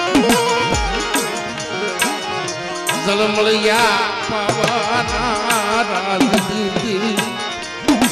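Instrumental interlude of Gujarati devotional folk music: hand-drum beats with occasional deep strokes under sustained melodic instruments, with a quick wavering melody line about halfway through.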